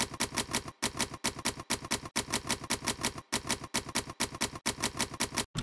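Manual typewriter keys striking in a quick, even run of clicks, about six or seven a second, with a few brief breaks between words.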